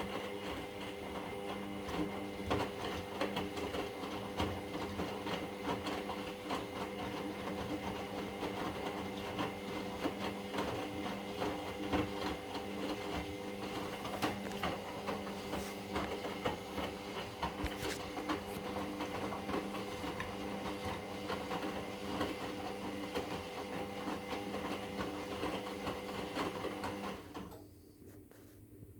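Indesit MyTime EWD71452 front-loading washing machine in its wash phase: the drum motor hums steadily under a run of small clicks as the drum turns. The motor stops about 27 s in and the machine goes quiet.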